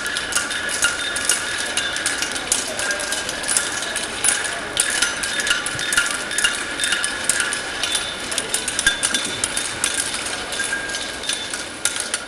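Hammers striking hot steel on several blacksmiths' anvils: a fast, irregular run of overlapping clanging blows, with the anvils ringing.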